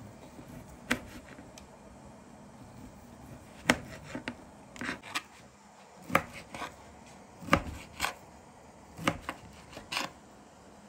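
Kitchen knife cutting dry sausage on a cutting board: about a dozen irregular sharp knocks of the blade striking the board, some in quick pairs.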